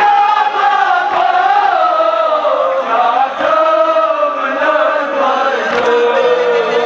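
Kashmiri noha, a Shia mourning lament, chanted by a group of men together through a microphone, with long held notes that slide slowly in pitch. A low thump sounds about every two seconds under the voices.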